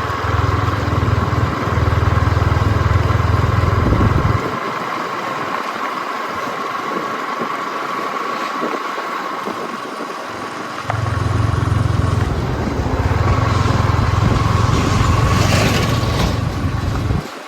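Vehicle engine running steadily with a steady high whine. A deep low rumble comes in for the first few seconds, returns about eleven seconds in, and cuts off abruptly near the end.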